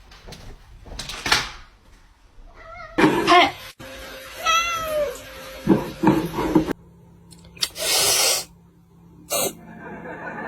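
A cat meowing a few times, with short noisy bursts and knocks between the calls.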